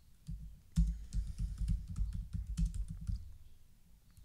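Typing on a computer keyboard: a fast run of keystrokes for about three seconds, thinning out near the end.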